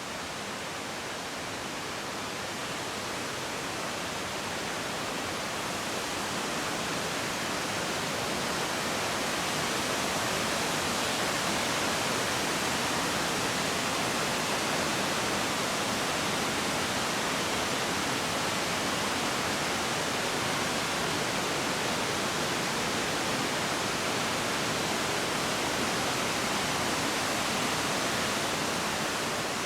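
Yudaki waterfall sliding down its rock face: a steady rush of falling water that grows louder over the first ten seconds or so and then holds even.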